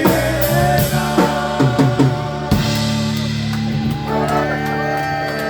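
Live polka band playing: a run of drum hits with the band, then the band holds one long chord from about halfway through, as at the close of a song.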